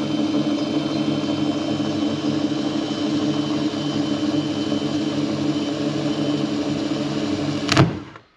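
Power drill running steadily as it bores a pilot hole through a boat hull. Near the end the bit breaks through the hull with a brief sharp peak, and the drill stops at once.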